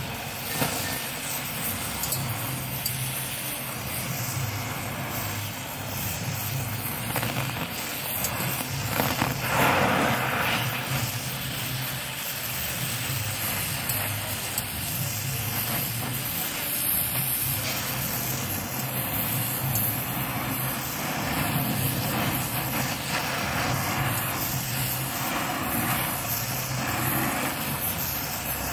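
Oxy-fuel gas torch flame hissing steadily while brazing brass onto the carbide teeth of an earth auger blade, with a low hum underneath that comes and goes. It surges louder about ten seconds in.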